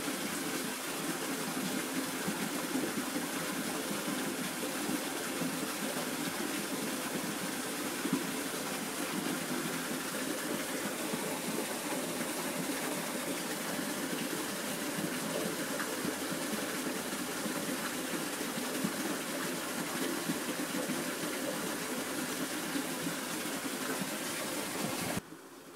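Steady rushing of running water, even and unbroken, cutting off abruptly near the end.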